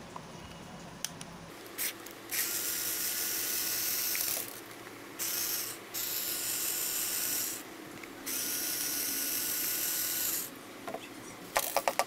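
Black+Decker cordless screwdriver whirring in four separate runs, the longest about two seconds, with a steady whine, as it backs out the screws of a small portable speaker's back cover. A few light clicks follow near the end.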